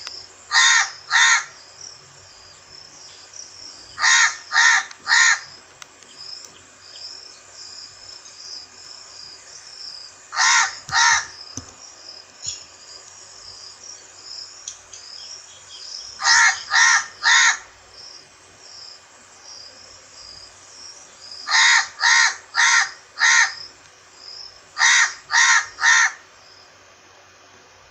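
A crow cawing in bouts of two to four harsh caws, a few seconds of pause between bouts. A steady high chirping runs underneath.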